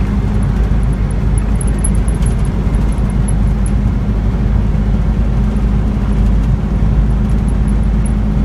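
Steady road and engine noise inside a moving car's cabin, with faint high ticking, mostly in the first half.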